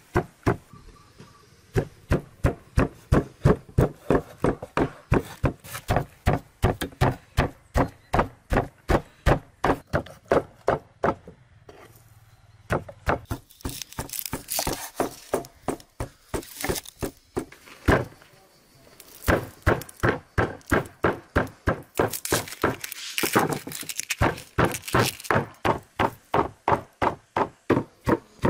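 Kitchen knife chopping on a wooden cutting board, cutting through raw chicken wings and then an onion: rapid, even strikes about three a second, with a short pause about twelve seconds in and stretches of crisper slicing.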